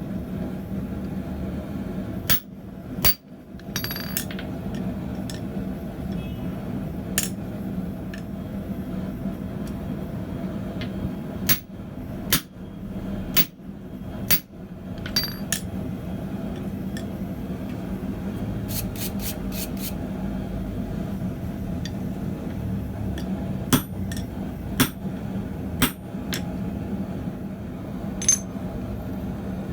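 Hammer blows on a top die held in an anvil hardy guide tool: irregular metal-on-metal strikes a second or more apart, with a quick run of lighter taps about two-thirds of the way through. A steady low hum runs underneath.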